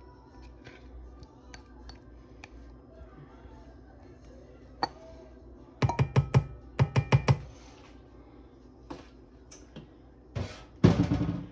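A kitchen utensil clinking against a bowl: a quick run of about eight ringing taps halfway through, then two louder knocks near the end.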